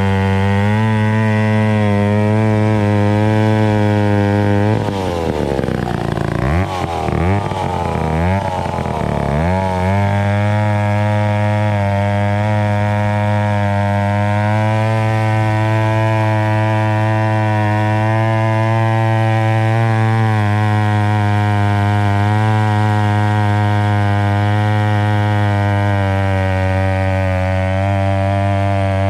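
Vintage McCulloch 890 103 cc gear-drive chainsaw running loud at high speed, most likely lugging through a softwood log. Between about five and ten seconds in, its pitch dips and climbs back several times, then it holds a steady tone.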